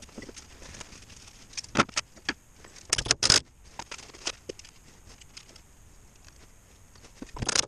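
Metal hand tools clinking and rattling as they are rummaged through and picked up, in a few short bursts: a couple of clicks about two seconds in, a louder clatter about three seconds in, and another rattle near the end.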